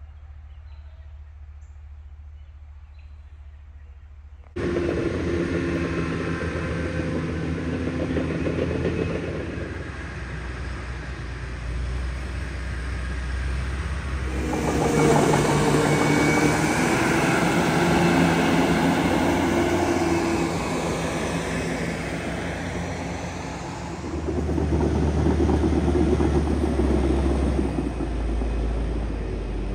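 Crawler bulldozer's diesel engine working, with the clatter of its steel tracks as it pushes and climbs through dirt. It is faint at first, jumps suddenly louder about four and a half seconds in, and then rises and eases with the load.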